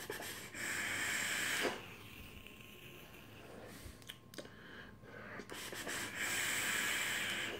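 Two long drags through a Govad rebuildable dripping atomizer with its airflow wide open, firing a 0.12-ohm single Alien coil at 125 watts: an airy hiss of air rushing through the atomizer, each drag one to two seconds, with softer breathing out of the vapour between them.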